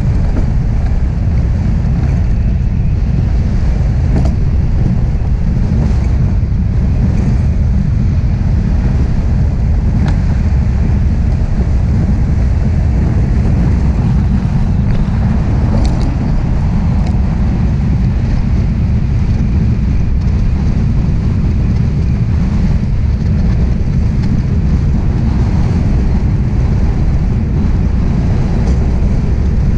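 DN iceboat runners hissing over smooth ice at speed, with wind buffeting the boat-mounted camera's microphone: a loud, steady low rumble, with a few faint ticks.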